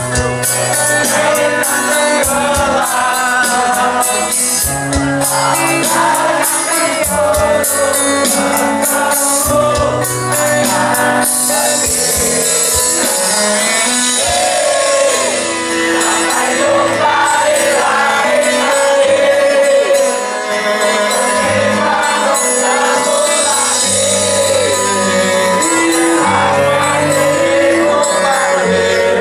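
Live punk rock band playing loud, a singing voice over bass and drums, with dense drum hits in the first part giving way to steady cymbal wash after about eleven seconds.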